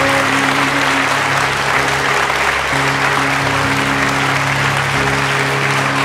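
Music with long held low notes that change about three seconds in, over steady crowd applause.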